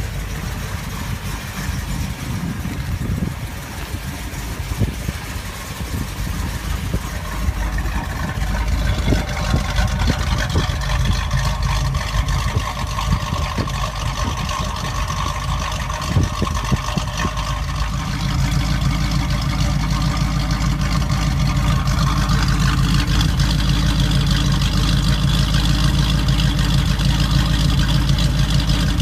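The Pontiac 400 V8 of a 1974 Firebird Formula 400 idling steadily through its dual exhaust, getting louder about two-thirds of the way in.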